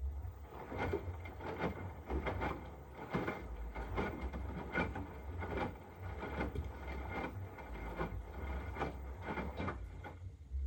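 Hotpoint WMFUG942 washing machine running a wash, its drum turning with a steady high motor whine and a low hum, and a quick, irregular run of knocks and clicks from the tumbling load. The whine and knocking stop shortly before the end.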